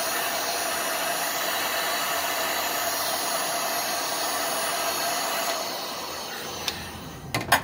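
Electric heat gun blowing hot air steadily with a fan hum, shrinking heat-shrink tubing over a capacitor. Near the end the airflow dies away, with a few sharp clicks.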